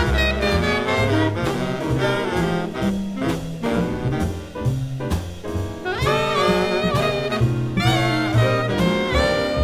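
Big jazz band playing: a walking bass and drums under saxophone and brass lines, with the horns coming in louder and brighter about six seconds in.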